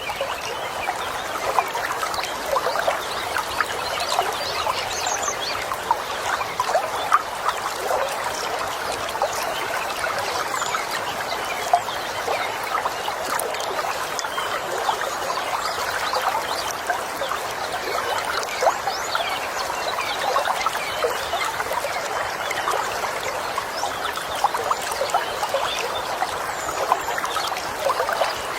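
A stream running over stones, with a steady babble of trickling and splashing water, and birds chirping faintly above it.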